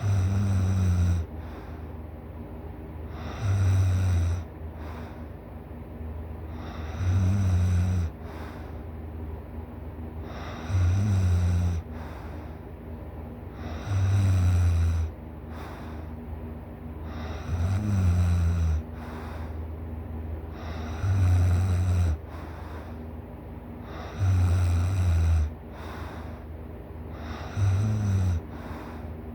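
A person snoring deeply and loudly: one snore about every three and a half seconds, each lasting about a second, nine in all. A steady faint noise runs between the snores.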